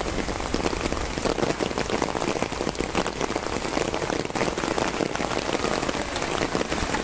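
Steady rain still falling on the garden, a dense even hiss of countless small drop hits.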